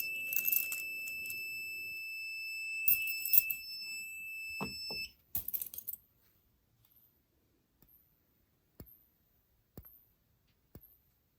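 A fire alarm control panel's piezo sounder gives a steady high-pitched electronic tone for about five seconds, then cuts off, with some rattling knocks of handling around it. After that come faint ticks about once a second.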